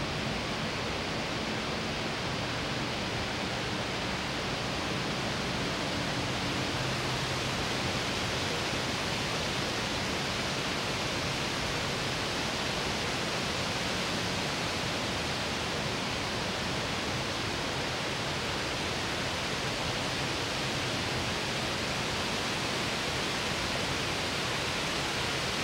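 A steady, even rushing hiss, with a faint low hum under it for the first several seconds.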